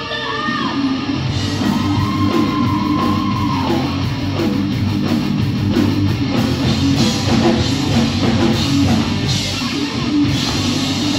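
Live heavy rock band playing at full volume: distorted electric guitar, bass and drum kit, with a woman singing over it and a long held note about two seconds in.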